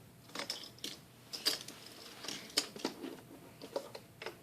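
Faint, irregular light clicks and taps, about a dozen of them, with soft rustling in between.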